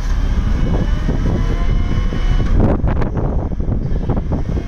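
Takeuchi TB175W wheeled excavator's diesel engine running steadily, with a faint high whine over the low rumble.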